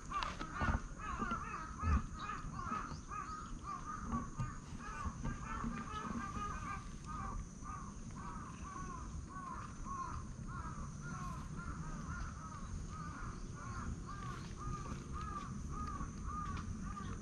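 An animal calling in a steady rapid series of short, rising-and-falling chirping notes, about two or three a second, with a couple of low thumps in the first two seconds.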